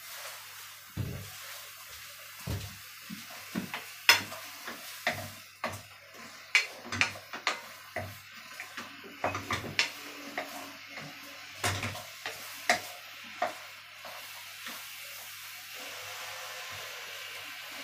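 Wooden spoon knocking and scraping against a metal frying pan as minced chicken chilli paste is stir-fried, over a soft sizzle. The knocks thin out about three-quarters of the way through, leaving a steady sizzle.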